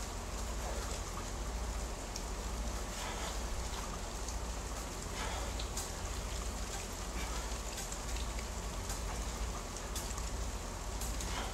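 Steady rain-like hiss with a low rumble underneath and faint scattered ticks.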